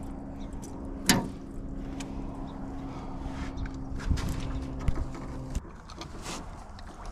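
Steady hum of a small motor that cuts off suddenly about five and a half seconds in, with a few sharp knocks and clicks.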